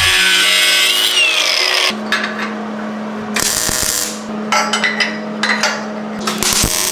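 Angle grinder cutting steel, its wheel winding down about two seconds in, followed by several short bursts of grinding on steel.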